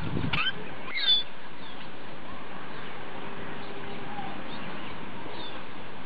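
Steady outdoor hiss with short bird chirps: one sharp, falling chirp about a second in, the loudest sound, and fainter chirps later. A brief low rumble and a few clicks at the very start.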